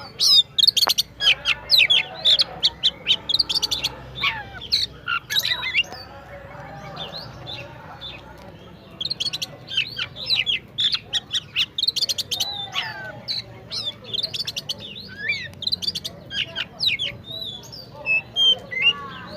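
Oriental magpie-robin singing a rapid, varied song of sharp chirps, whistled slides and rattling notes, in two long bouts with a short pause in between.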